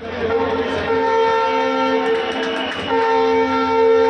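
Train horn sounding a long steady multi-tone blast, breaking off briefly about three seconds in and sounding again.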